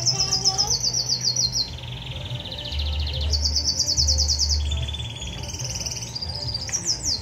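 Caged songbird singing a long, fast trilled song: runs of rapidly repeated notes that switch between higher and lower pitches every second or so, with no break.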